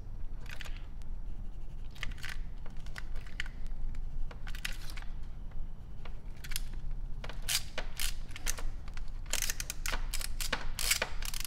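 Handling noise of a stuck clockwork spring-motor housing being twisted against a Canon Dial 35 camera body: irregular clicks, creaks and scrapes of metal and plastic under hand strain, coming thicker in the second half as the threaded joint fights being unscrewed.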